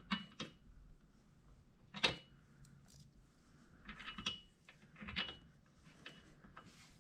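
A few scattered small metallic clicks and knocks, some with a faint ring: hardware being handled while fitting bolted end caps and Allen-head bolts onto steel rock sliders. The sharpest knock comes about two seconds in, with a small cluster about four seconds in.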